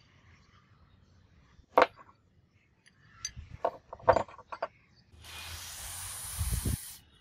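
Hydraulic jack parts, metal and painted pieces, set down and knocked on a tabletop: a few sharp clinks, the loudest about two seconds in and a cluster around four seconds. Then a steady hiss for about two seconds with a couple of low thumps near its end.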